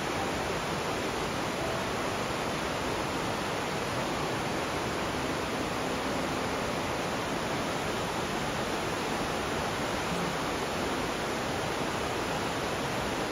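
A fast-flowing river rushing steadily: an even, unbroken wash of water noise.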